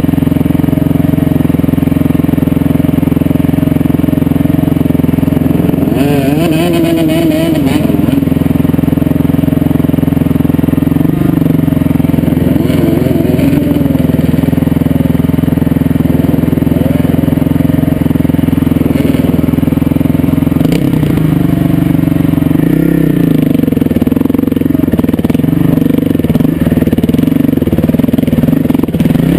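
Motorcycle engine running steadily while riding, its pitch rising and falling a little a few times with the throttle.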